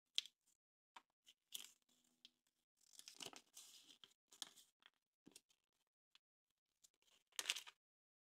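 Kinder Surprise egg's foil wrapper being torn and crinkled by hand: scattered short crackles, a longer rustle about three seconds in, and a louder tear near the end.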